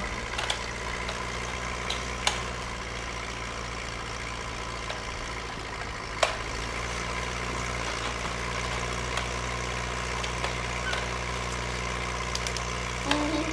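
A steady low engine-like hum, with a few sharp clicks of plastic toys knocking together, twice standing out.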